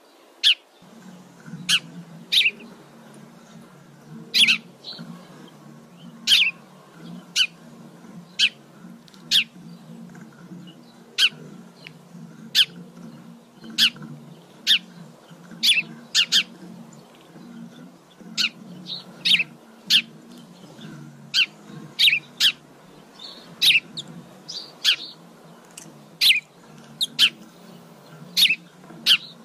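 Eurasian tree sparrows chirping, short sharp single chirps about once a second, over a steady low hum that starts about a second in.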